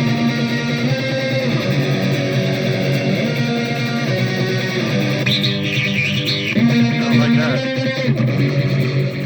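Electric guitar played through a Donner Arena 2000 multi-effects processor set to one of its presets, with notes ringing on and overlapping. A phrase of higher notes comes a little past the middle, followed by bent notes that slide in pitch.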